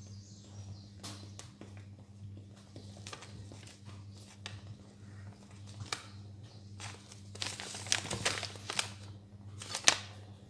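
Wooden spoon stirring thick mashed-potato purée in a stainless-steel pot, with scattered soft pops and scrapes as the thickening purée starts to bubble and spatter. The pops come thickest about eight seconds in. A steady low hum runs underneath.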